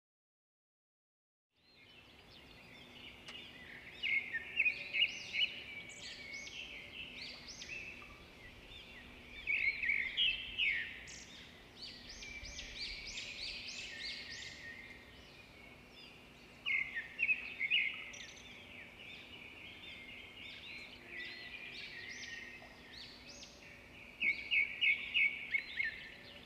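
Small birds chirping and twittering, with quick runs of rapid notes several times, over a faint steady hum. It starts after a short dead-silent gap.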